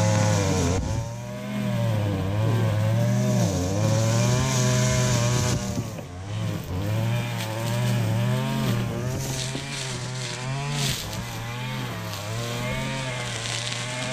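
Two-stroke gas string trimmer running near full throttle, its engine note rising and falling as the throttle is worked, easing off briefly about a second in and again around six seconds in. The nylon line hisses through tall grass.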